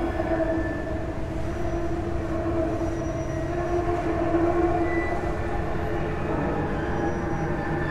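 A steady droning tone with a fainter higher overtone, held without a break over a dense low rumble, part of the film's experimental soundtrack of drones and location-recorded noise.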